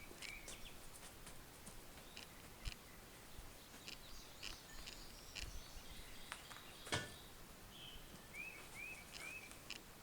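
Faint outdoor ambience with a bird calling: short arched chirps, three in a row near the end. Scattered faint clicks, with one sharper tap about seven seconds in.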